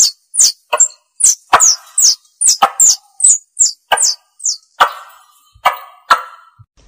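Rapid series of sharp tupai (forest squirrel) calls played as a hunting lure: short high chirps, each falling in pitch with a click, about two to three a second.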